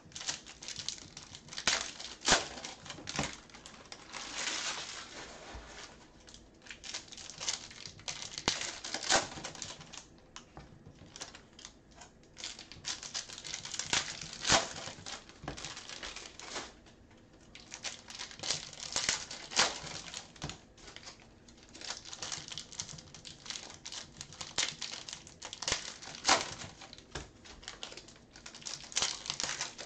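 Foil trading-card pack wrappers crinkling and tearing open, with cards handled and slid against each other; irregular crinkles broken by sharp snaps.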